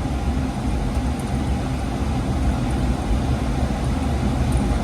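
Weil-McLain oil-fired boiler's burner firing steadily: a loud, even low rumble of the burner fan and flame, the boiler running and heating up.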